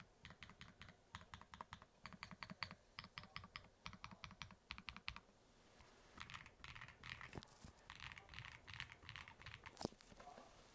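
Typing on a mechanical keyboard with 苦茶 (Kucha) purple switches: fast runs of keystroke clicks, a brief pause about five seconds in, then softer keystrokes resuming, with one sharper, louder clack near the end. The whole run is faint.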